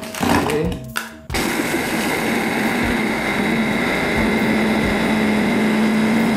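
Electric mini chopper (Philips) grinding Cremo chocolate sandwich biscuits into crumbs. It switches on about a second in, after a short clatter of biscuits being tipped into the bowl, and then runs steadily with a constant hum and whine.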